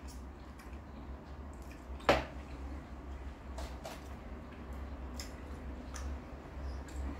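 A man quietly chewing a forkful of kebab meat, with faint clicks throughout and one sharp click about two seconds in, over a steady low hum.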